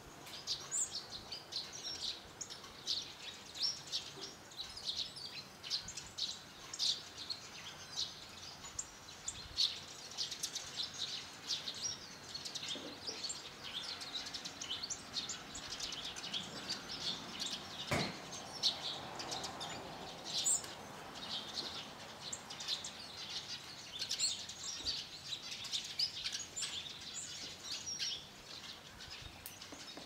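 Mixed flock of hawfinches and tree sparrows giving constant short, high chirps and calls, many overlapping. A single sharp knock about halfway through.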